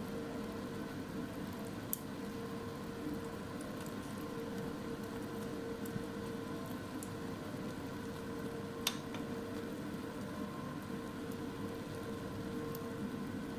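Food cooking, a steady bubbling, sizzling hiss under a faint hum, with a few sharp pops; the loudest pop comes about nine seconds in.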